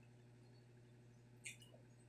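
Near silence over a low steady hum, with one short crisp click of mouth-closed chewing on crispy deep-fried pork intestine about one and a half seconds in.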